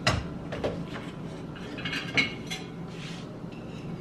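Kitchen handling sounds while a teaspoon of baking powder is measured out: a sharp knock right at the start, then light clicks and a few clinks of a metal measuring spoon against the tub and the glass mixing bowl.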